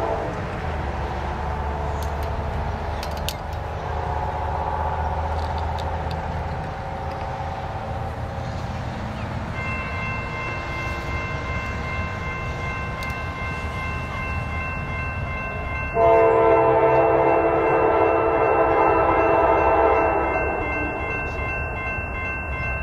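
Approaching Norfolk Southern freight train led by GE Dash 9-44CW diesels, with an engine rumble and its horn sounding, at first more faintly, then a loud chord blast for about four seconds about two-thirds of the way in. A steady high ringing tone joins about ten seconds in.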